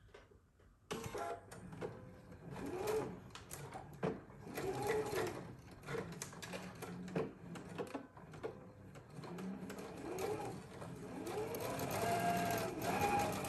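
Sewing machine stitching a seam in mulberry silk, starting about a second in and running in several bursts, its motor speeding up and slowing down with each run.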